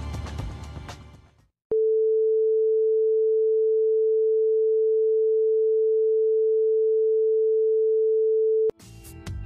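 Broadcast bars-and-tone test tone: a single steady mid-pitched sine tone held for about seven seconds, then cut off sharply. It marks the slot where news and commercials are to be inserted. Bumper music fades out before it, and music starts again near the end.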